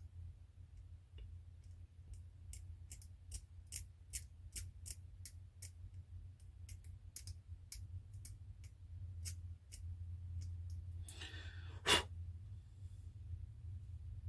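Small hand tool clicking and snipping at a plastic model kit part as its window openings are cleared out, in an irregular run of sharp clicks, a couple a second. A short scratchy rustle follows near the end, then one louder click.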